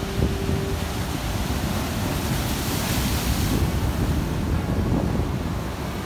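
Ocean surf breaking and foaming over rocks, with wind buffeting the microphone. The hiss of rushing water swells about two to three seconds in.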